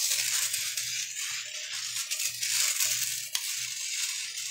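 Mini RC motorcycle's small electric motor running as it drives over a tile floor, a steady high whir with many small clicks. A low hum cuts in and out about twice a second.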